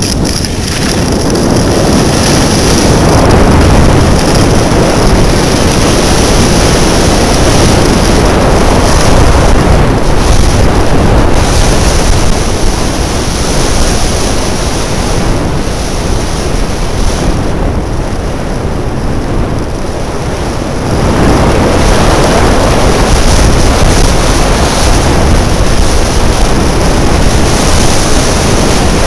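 Heavy wind buffeting on a helmet camera's microphone during a fast ski descent, mixed with skis running over groomed snow. It eases for a few seconds a little past the middle, then picks up again.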